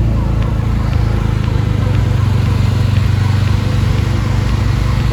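A road vehicle on the move, its engine a steady low drone over road noise.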